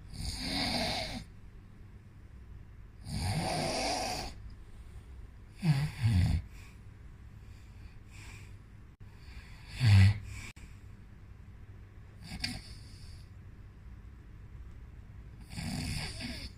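Snoring: a slow, irregular series of breaths a few seconds apart, some airy and hissing, with two loud low rattling snores about six and ten seconds in.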